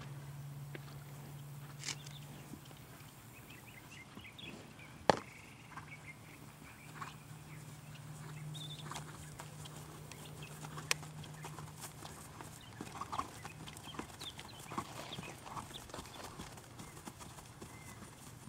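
Hoofbeats of a ridden chestnut Thoroughbred gelding moving over a grass field, over a steady low hum, with one sharp click about five seconds in.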